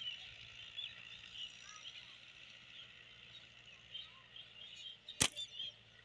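Many small birds chirping and calling in the background; about five seconds in, one sharp crack of a slingshot shot.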